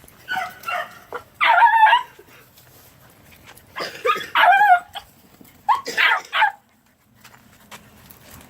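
Three-month-old puppies yipping and barking in four short bouts of high, bending calls, while trailing a rabbit.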